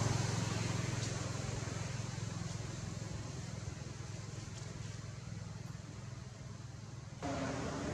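Low, steady engine rumble of a motor vehicle that slowly fades away. About seven seconds in it gives way abruptly to a few steady tones.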